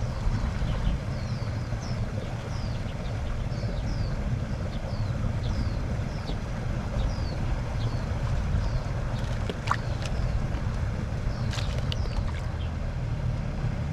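Outdoor ambience: a steady low rumble, with a run of short, high, falling chirps about two a second over the first half and a few sharp clicks in the second half.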